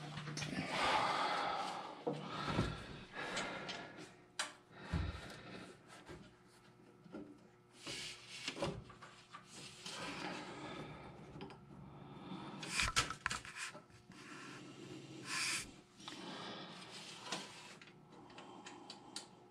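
Irregular metal clinks, knocks and rubbing as nuts, bolts and tools are handled and fitted by hand inside the drive tunnel of a Cub Cadet 154 Lo-Boy garden tractor during clutch reassembly.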